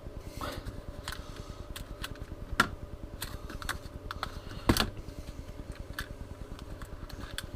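Small clicks and rattles of Rooster Tail spinner lures and a plastic tackle box being handled, with two louder knocks, about two and a half and four and a half seconds in.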